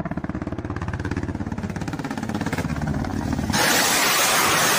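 Ka-52 attack helicopter's coaxial rotors beating in a rapid, even pulse as it passes low overhead. About three and a half seconds in, a sudden loud, steady rushing hiss breaks in as it launches a salvo of unguided rockets.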